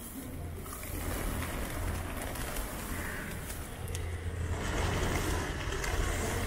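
Wind rumbling on the microphone, mixed with the wing flutter of a large flock of pigeons lifting off and settling. The flutter and rumble grow louder about halfway through.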